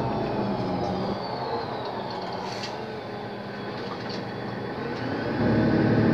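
Inside a Mercedes-Benz O 530 Citaro city bus under way: the diesel engine and driveline drop back while a high whine glides down in pitch. About five seconds in, the engine picks up again and grows clearly louder.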